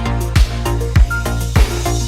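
Background music with a steady electronic beat and heavy bass kick drums.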